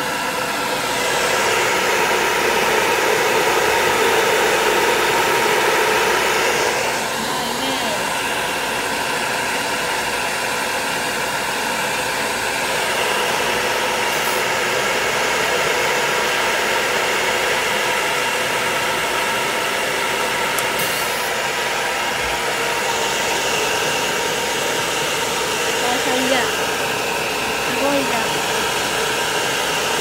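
Hair dryer blowing steadily on a wet dog: rushing air over a steady motor whine. It is louder for the first several seconds, then a little quieter and even.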